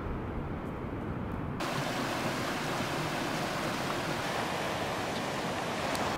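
Steady rushing of a rocky mountain stream, a full, hissy water noise that comes in about a second and a half in. Before it is a duller, lower steady rush.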